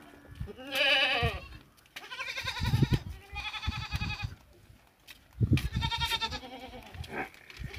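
Goat bleating repeatedly: four long, wavering calls of about a second each, and a shorter one near the end.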